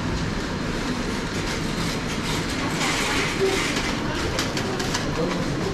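Metal shopping cart being pushed along, its wheels and frame rattling continuously with many quick clicks.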